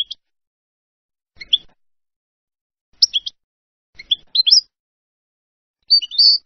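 European goldfinch singing short phrases of Levantine (Syrian-style) song. Each phrase is a quick cluster of high chirping and twittering notes. Five phrases come about every second and a half, with silence between them.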